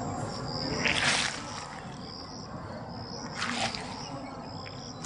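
Insects chirping steadily in grassland, with two short bursts of noise about one and three and a half seconds in.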